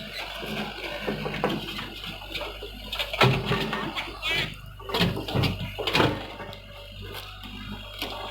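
Hyundai excavator running with a steady low hum, and several irregular knocks and scrapes, loudest about three, five and six seconds in.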